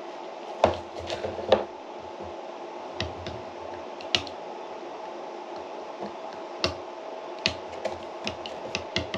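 A spoon clinking and scraping against a small bowl and a plastic yogurt tub as yogurt is spooned out, in scattered light clicks and knocks, over a steady hum.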